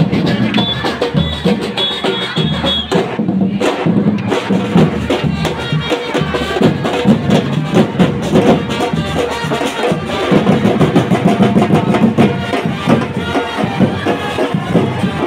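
Loud percussion-driven music: drums and sharp wood-block knocks beating thickly and without a break.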